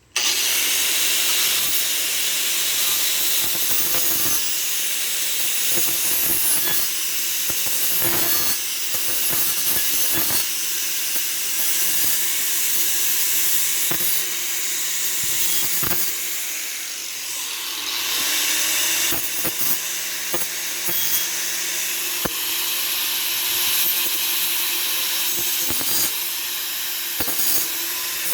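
Electric grinder running steadily and grinding down the rough edges of a steel saw-blade knife blank, a harsh continuous hiss over the motor's hum. It starts suddenly, and its motor note sags briefly under load a little past halfway before picking back up.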